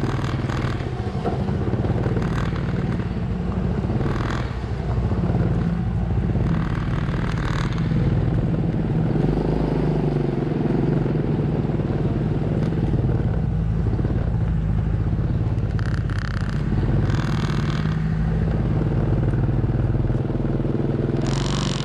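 Vehicle engine running steadily at crawling speed, with several brief scraping noises.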